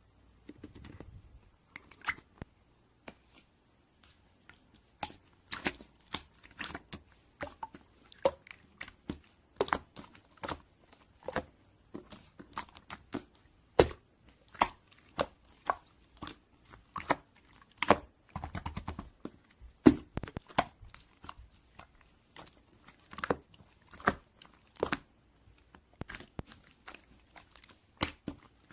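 Crunchy chewing and biting: an irregular run of sharp crackling crunches, several a second, with a few louder snaps.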